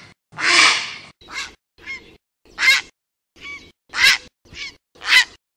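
Grey heron calling: one longer harsh call, then about seven short harsh calls, spaced half a second to a second apart.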